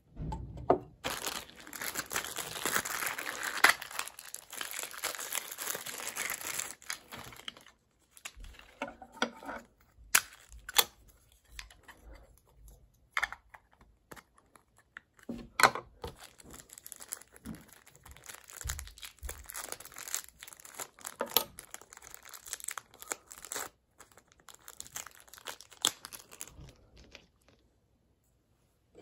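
Plastic packaging crinkling and rustling for several seconds, followed by scattered sharp clicks and shorter rustles as plastic model parts and the display stand are handled and fitted together.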